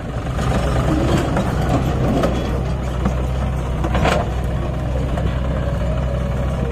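JCB backhoe loader's diesel engine running steadily under load as its backhoe bucket digs into a soil pile, with a sharp clank about four seconds in.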